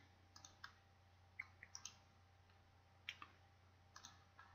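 Faint computer mouse clicks, about a dozen scattered through, some in quick pairs like double-clicks, over near-silent room tone with a steady low hum.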